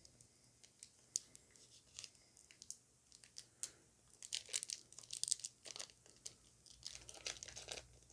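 Foil trading-card booster pack wrapper being torn open and crinkled, in short scattered crackles that grow busier about halfway through.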